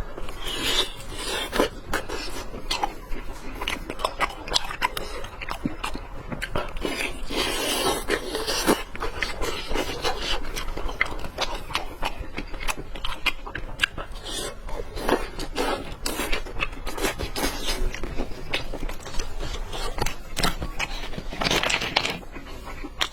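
Close-miked chewing and biting of a pan-fried chicken leg cutlet: wet mouth sounds with many small clicks, and a few louder bites.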